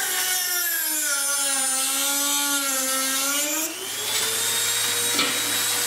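Dremel rotary tool with a cut-off disc cutting a plastic pipe. Its whine sinks in pitch as the disc bites into the plastic, then climbs back to full speed about four seconds in as the load comes off, and runs on steadily.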